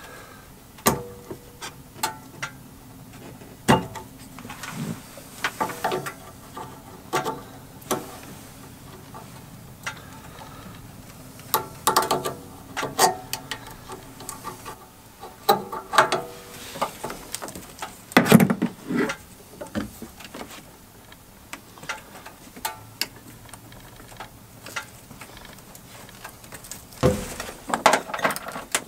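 Irregular clicks, clinks and knocks of hand tools and fittings, some in quick clusters, while the boost-control hoses are taken off a car's engine, over a faint steady hum.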